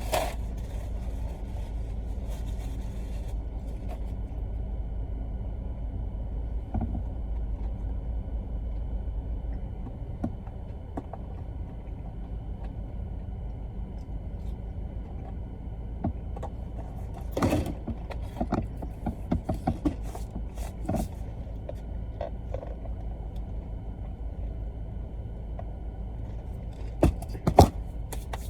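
Steady low rumble of a car's cabin with the engine running, with scattered clicks and knocks, a cluster of them a little past halfway and a few louder ones near the end.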